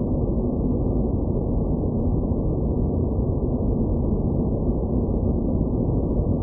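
Steady low, dark rumbling noise with no highs, a synthesized space-ambience drone that holds even throughout.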